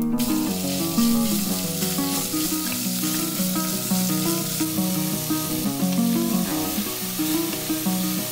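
Diced meat sizzling as it fries in a hot pot while being stirred, over background music.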